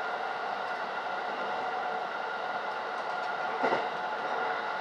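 An electric multiple-unit train running at speed, heard from inside the carriage: steady running noise with a held whine of several tones. A brief clack about three and a half seconds in is the loudest moment.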